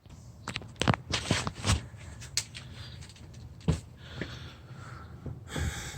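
Scattered clicks and light knocks from hands working a car's plastic interior door trim panel, with a low steady hiss underneath.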